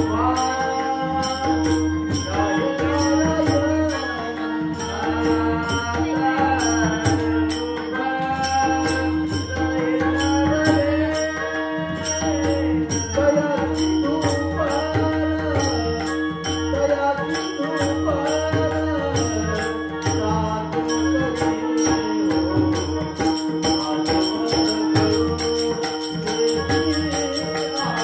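Indian devotional music: a held drone under a wavering melodic line, with a steady rhythmic beat.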